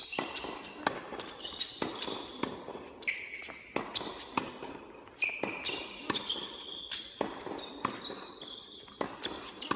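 Tennis balls struck by a racket and bouncing on an indoor hard court, a sharp pock every half second to a second. Between the hits come short high squeaks of sneakers on the court surface.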